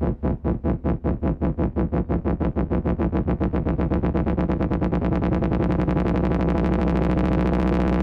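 Electronic dance music in a build-up: a repeated stab speeds up until the pulses run together into one sustained, dense tone about three quarters of the way through.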